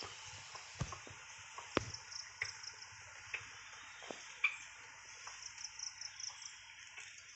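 Insects chirping in a high-pitched, evenly pulsing drone, with scattered sharp clicks and ticks.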